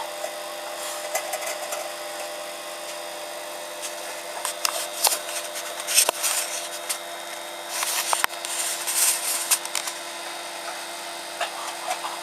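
Microwave oven running with a steady hum, a compact fluorescent light globe inside it. Irregular crackling and scratching comes and goes, strongest about halfway through and again a little later.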